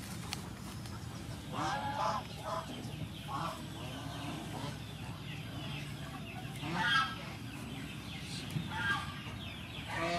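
Chickens clucking in the background, a handful of short separate calls, over a steady low hum.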